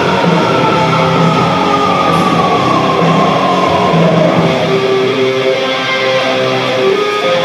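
Loud rock music with distorted electric guitar, a guitar line sliding down in pitch over the first few seconds.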